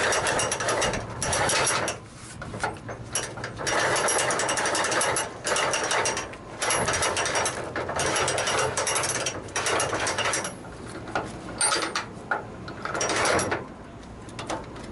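Black & Decker cordless drill running in reverse, turning a flatbed strap winch through an Allen key in its hole to roll the strap up, with rapid clicking from the winch's ratchet while it turns. The drill runs in short pulses of one to four seconds with brief pauses between them, and two short pulses near the end.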